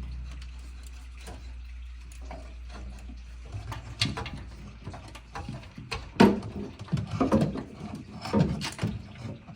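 Metal hand tools clinking and knocking in irregular sharp clanks, as socket and ratchet work goes on in a car's engine bay. Under it a low steady hum stops about three and a half seconds in.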